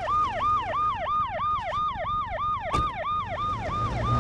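Cartoon ambulance siren sounding a fast yelp, its pitch swooping down and back up about four times a second. A single short click comes about two-thirds of the way through.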